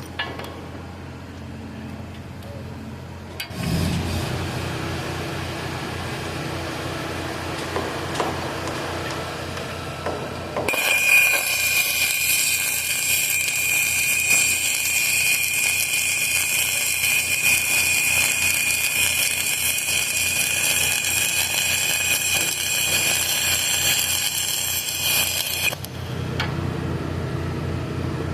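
An electric arc welding a short bead on galvanized steel: about ten seconds in the arc strikes and hisses and crackles steadily for about fifteen seconds, then cuts off suddenly. An engine runs underneath throughout, its low drone picking up a few seconds in.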